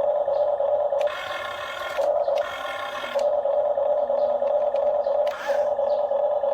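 Electric motors and gearboxes of a radio-controlled excavator whining steadily. A harsher gear noise breaks in three times, each for under a second, as the machine's functions start and stop.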